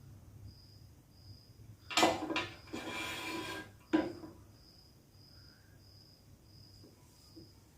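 A clatter about two seconds in, then water poured from a measuring cup into the facial steamer's reservoir for about a second, and a single sharp knock just after.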